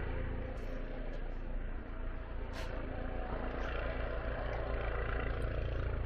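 Helicopter flying overhead, a steady low drone of rotor and engine.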